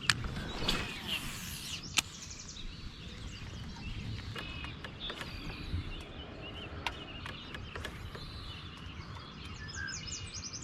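Several birds chirping and calling over a steady low outdoor hum, with a few sharp clicks, one at the start and another about two seconds in.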